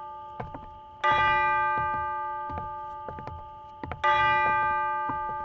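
A deep bell tolling slowly, struck twice about three seconds apart, each stroke ringing on and fading away, with faint scattered ticks and knocks between the strokes.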